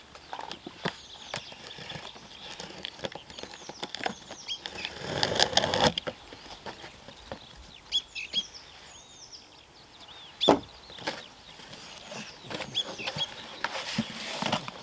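Cardboard box and packaging being handled and opened, with clicks, knocks and a longer rustle about five seconds in. Small birds chirp in the background.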